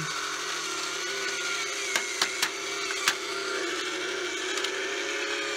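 Playz V8 engine model kit running on its small electric motor, which turns the plastic crankshaft, pistons and valves: a steady mechanical whir with a faint wavering whine, and a few sharp light clicks a couple of seconds in.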